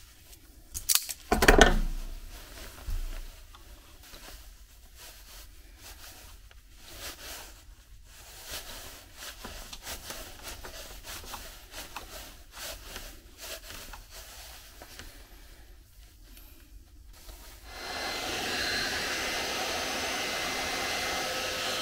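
Self-adjusting wire strippers snapping shut on a thin wire about a second in, the loudest sound. Then small clicks and rustles as the bare wire ends are twisted together by hand. From about 18 seconds in, an electric heat gun blows steadily, shrinking heat-shrink tubing over the joint.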